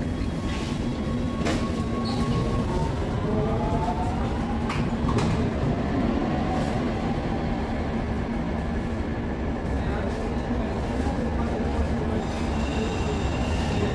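Cologne Stadtbahn line 16 light-rail car running underground, heard from inside the car: a steady rumble of wheels on track, with a whine rising in pitch over the first few seconds as the car picks up speed. A few sharp clicks come early on, and a thin high whine sets in near the end.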